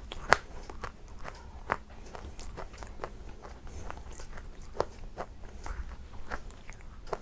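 Brittle white shale being bitten and chewed: irregular sharp cracks and crunches, the loudest a fraction of a second in.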